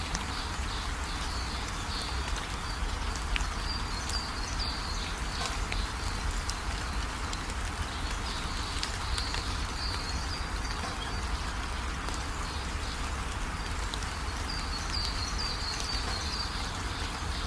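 Birds chirping in short runs several times over a steady background hiss and low rumble.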